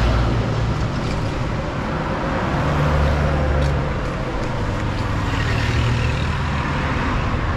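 Steady road traffic noise, with passing vehicles rumbling louder twice, and a few faint taps.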